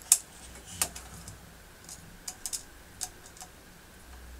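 Scattered sharp plastic clicks and ticks, a handful of them, as a small screwdriver and fingers secure the cable clamp over the wiring terminals of a Nest Heatlink.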